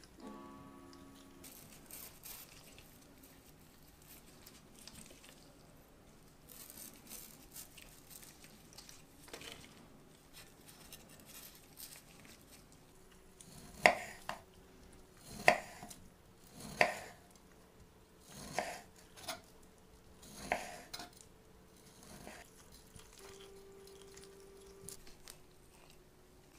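Kitchen knife slicing a peeled kiwi into rounds on a wooden cutting board: about six sharp chops of the blade through the fruit onto the board in the second half, after quieter rustling and scraping of fruit handling.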